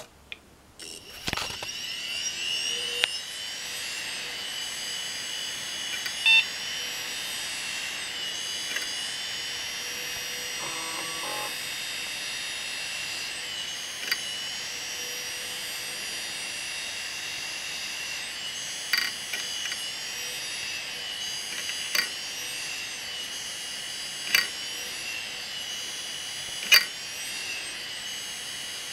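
Damaged Quantum hard drive, lid off, spinning up with a rising whine that settles into a steady high-pitched whine, while the head actuator gives sharp clicks every few seconds. It is the drive trying again and again to start and failing, with weird sounds.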